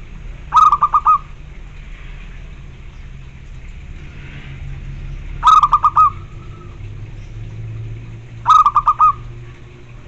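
Zebra dove (perkutut) cooing: three short phrases of quick staccato notes, one about half a second in, one about five and a half seconds in and one about eight and a half seconds in.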